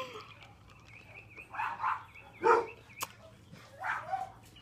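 A dog whining in a thin, wavering tone, then giving a few short barks.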